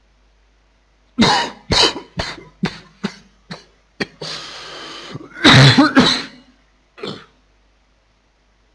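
A man coughing in a fit, set off by sniffing the fumes of a very old hot sauce. About a second in come a quick run of short coughs, then a drawn breath, then one loud longer cough and a last one near the end.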